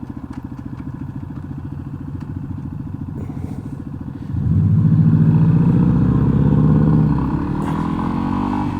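A 2021 Yamaha XT250's single-cylinder engine running at low revs under way. About four seconds in, it opens up suddenly and runs louder and harder, then eases slightly near the end.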